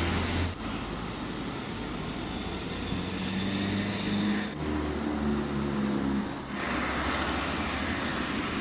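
Steady low drone of a motor vehicle's engine with road noise, changing abruptly about half a second in, after about four and a half seconds and after about six and a half seconds.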